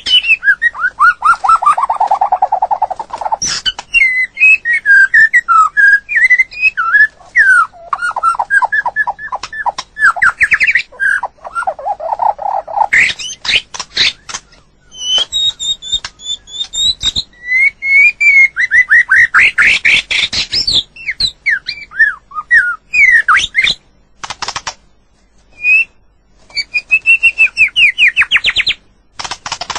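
White-rumped shama singing: a long, varied song of whistled phrases, fast runs of repeated notes and rising and falling sweeps, mixed with sharp clicks and broken by short pauses.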